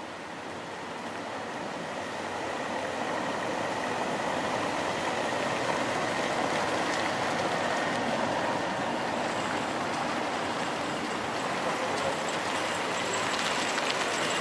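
A small flatbed truck driving over cobblestones, a steady rough tyre and engine noise growing louder as it approaches.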